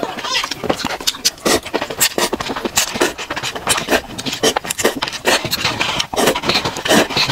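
Close-miked slurping of soupy instant noodles, with wet chewing, in quick irregular bursts.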